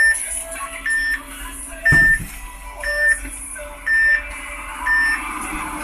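Electronic warning beeper in a bus driver's cab giving a short high beep about once a second, with a low thud about two seconds in.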